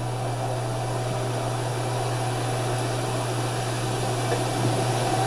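Steady low hum under an even hiss, constant throughout, with no other distinct sound.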